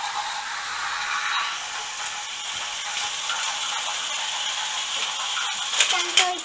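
Battery-powered Plarail toy trains running on plastic track: a steady whirring of small motors and gearboxes, with a few sharper clicks near the end.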